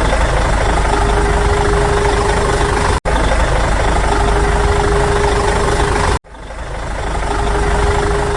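A motor or engine running steadily with a constant hum, cut off abruptly twice. After the second break it swells back up and then fades.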